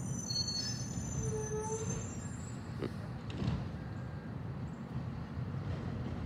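Garbage truck's engine running with a steady low rumble, with faint high-pitched squeals over the first couple of seconds and two short clunks around the middle.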